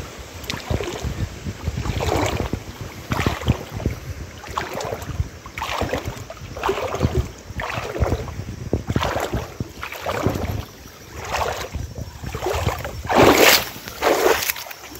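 Footsteps brushing through grass along a dirt path, a swishing step about once a second, over a low rumble of wind on the microphone.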